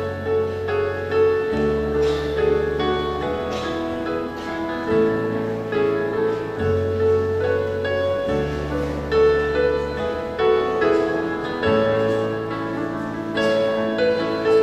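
Keyboard music playing held chords over a bass line that steps to a new note every second or two.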